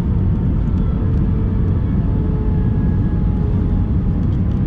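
Steady airliner cabin noise on the descent to landing: jet engines and rushing airflow make a loud, even low rumble, with a few faint steady tones above it, heard inside the cabin at a window seat.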